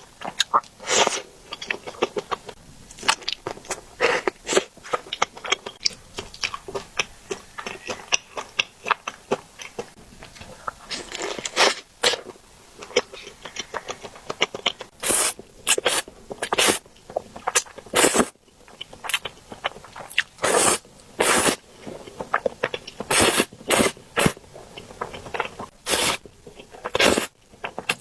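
Close-miked eating sounds from spicy noodles and dumplings: wet chewing and mouth clicks in an irregular stream. Louder short noisy strokes come more often in the second half.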